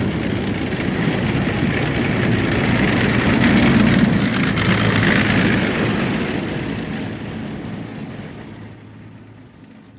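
A convoy of armored personnel carriers driving, with a dense mix of engine and running-gear rumble. It swells to its loudest about four seconds in, then fades steadily away near the end.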